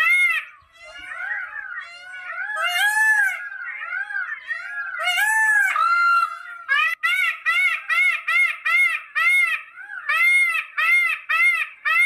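Indian peafowl (peacock) calling: a loud run of short, arched calls, two to three a second, repeated in bursts. In the middle stretch the calls are more varied and overlap.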